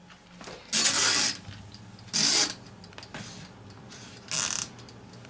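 Oven control knobs being turned to set the temperature: four short scraping bursts about a second apart.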